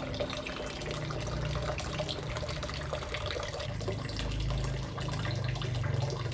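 Water running steadily and splashing from a small homemade aquarium waterfall.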